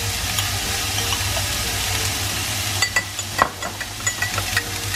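Onions, tomatoes and celery sizzling as they fry in a stainless steel pan. From about three seconds in, a metal spoon clinks repeatedly against a drinking glass as tomato sauce is stirred into water.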